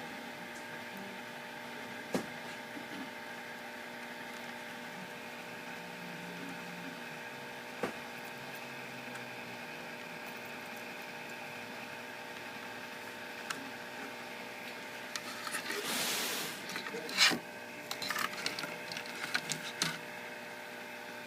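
Hand-soldering of a laptop DC jack's traces over the steady hum of bench equipment, with a few sharp clicks and taps from the soldering tools, a brief hiss a little after halfway, and a run of small ticks and scrapes near the end.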